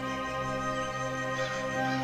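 Instrumental background music with long held notes.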